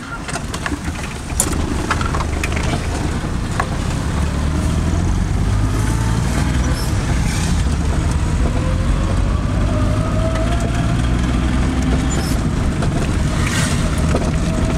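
A motor vehicle's engine running steadily with a low rumble, and a faint whine that slowly rises in pitch through the middle.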